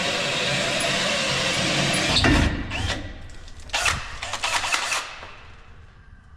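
Cordless drill boring through a metal tow-truck bed stabilizer, running steadily, then a knock about two seconds in and a few shorter bursts of drilling before it stops.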